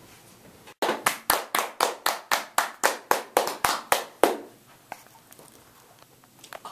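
Hands clapping: a quick, even run of about fourteen claps, about four a second, lasting some three and a half seconds and then stopping.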